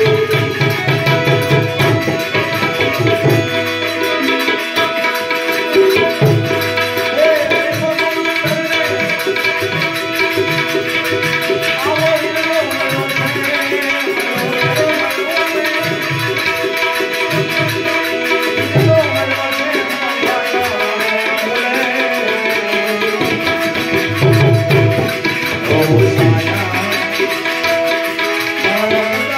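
Tabla and harmonium playing a Gujarati devotional bhajan: the harmonium holds sustained chords while the tabla keeps up a steady rhythm of deep bass strokes and sharper treble strokes.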